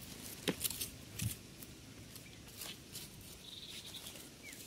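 Potting soil being scraped and crumbled loose in a clay pot with a small iron tool and the fingers: scattered, irregular scrapes and gritty clicks.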